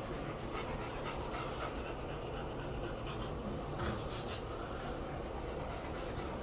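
A dog panting over a steady low background noise.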